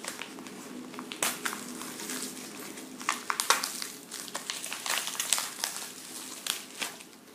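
Irregular crinkling, rustling and clicking of packaging being handled, as nail products are unpacked and picked up.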